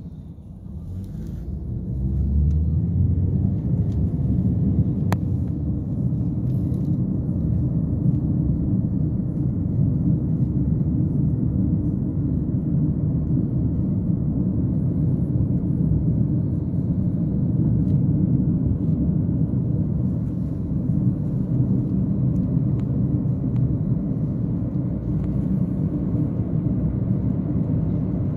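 Car driving on the road, heard from inside the cabin: a steady low rumble of tyres and engine that builds over the first couple of seconds as the car gets moving, then holds steady.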